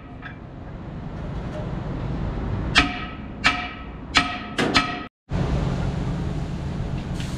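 Sharp ringing metal-on-metal strikes at the rear wheel hub of a cement mixer truck, five of them in about two seconds, the last two close together. After a sudden break, a steady low hum of workshop machinery.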